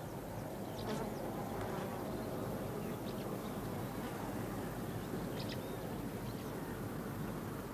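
Summer countryside ambience: insects buzzing steadily over a field, with a couple of faint short high chirps.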